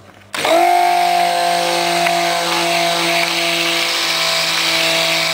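Handheld stick blender switched on about a third of a second in and running steadily with a whining motor hum, churning cold-process soap batter in a plastic jug. The batter has thickened fast (accelerated), and stick blending thins it out again.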